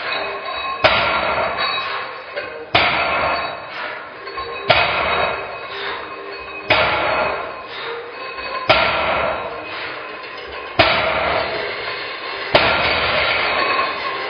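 A loaded barbell (125 kg deadlift) set down on the gym floor seven times, about every two seconds: a sharp thud of the plates at each touch-and-go deadlift rep. Music plays underneath.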